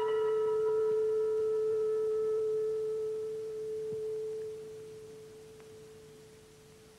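A single held musical note from a film score, a nearly pure steady tone that slowly fades away; its fainter upper overtones die out within the first few seconds.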